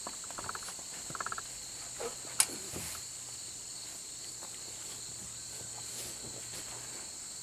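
Steady high chirring of a cricket chorus, with a few short rattles and one sharp click about two and a half seconds in as someone gets up and moves about.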